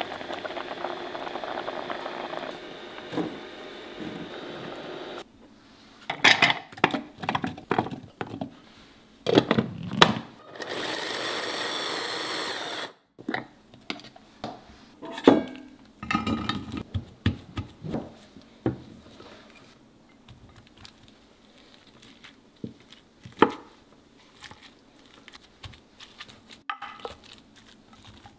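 Kitchen work sounds: utensil clicks and knocks, then a small electric food chopper running for about two and a half seconds before cutting off sharply. After it come a spoon's scraping and taps against the chopper's plastic bowl.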